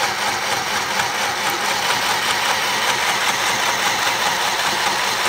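Small plastic mini sewing machine running steadily at its low speed setting, the needle stitching through two layers of 1000D Cordura in an even, unbroken buzz.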